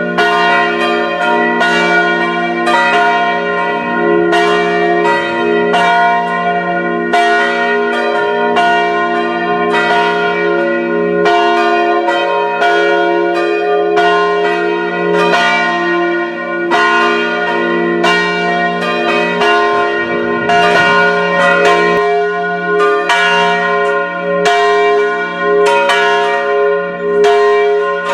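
Several church bells pealing together for Christmas. Their strokes overlap about once or twice a second, and each note rings on under the next.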